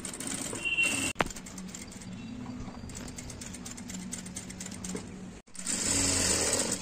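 Electric sewing machine stitching: a steady motor hum under the rapid ticking of the needle. A sharp click comes about a second in; the sound drops out briefly a little after five seconds, then returns louder.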